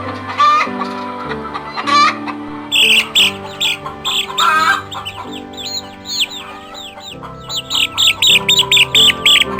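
Chickens calling over background music: a couple of wavering calls at first, then from about three seconds in a rapid run of short, high-pitched falling calls that grows denser near the end.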